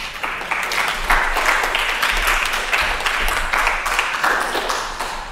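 Audience applauding, many hands clapping together, fading out near the end.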